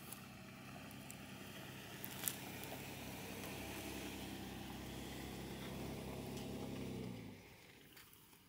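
Engine of a Toyota 4Runner SUV running at low revs as it crawls over a rough dirt track, growing slowly louder and then dropping away about seven seconds in as it passes. A single sharp click about two seconds in.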